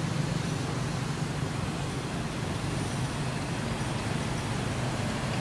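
Steady low rumble and hiss of road traffic.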